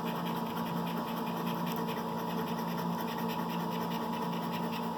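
Lottery scratch-off ticket being scratched, a steady rapid rasping over a faint steady hum.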